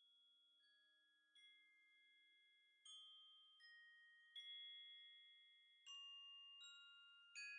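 Soft background music of bell-like mallet-percussion notes, one struck about every three-quarters of a second and left ringing, fading in from silence and growing louder.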